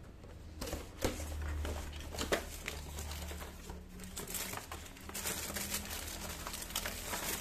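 Cardboard and paper packaging being handled and opened: rustling and crinkling with scattered light clicks and knocks, thickening into a denser crinkle about five seconds in.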